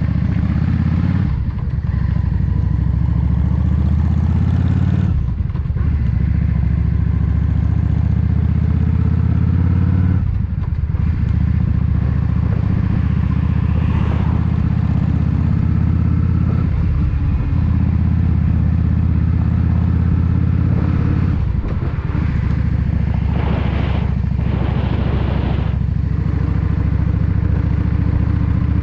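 Yamaha XVS 650 Drag Star Classic's V-twin engine running under way as the motorcycle picks up speed, with a short break in the engine note every few seconds as the rider shifts up. Wind rushes over the microphone for a few seconds near the end.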